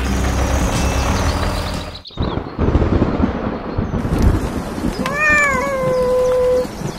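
A cat meowing once, about five seconds in: one long call that rises, dips and then holds steady for about a second, over the steady hiss of falling rain.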